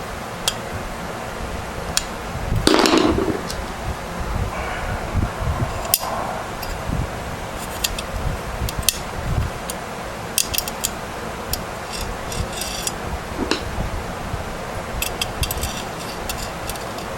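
Hands handling parts inside a desktop computer case: scattered sharp clicks and taps of metal and plastic, with one louder scrape about three seconds in.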